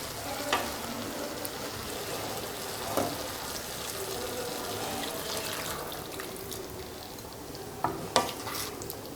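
Chicken curry sizzling in a hot pan while a spoon stirs it, with a few sharp clicks of the spoon against the pan about half a second in, at about three seconds, and twice near the end.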